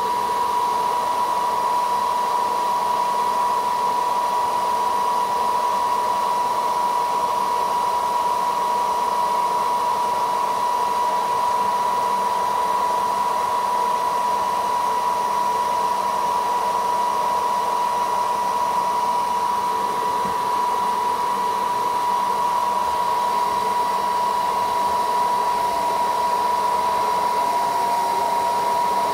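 Hair dryer running steadily: rushing air with a high, even whine that dips slightly in pitch near the end.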